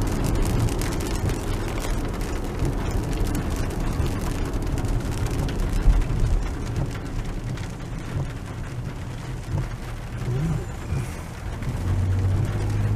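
Rain hitting the roof and windshield of a moving Toyota car, heard from inside the cabin over steady road and engine noise. A low engine hum comes up near the end.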